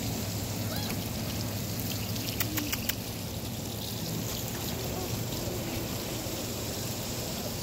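Garden hose spraying water onto a trampoline mat, a steady rush of water. A short run of clicks comes about two and a half seconds in.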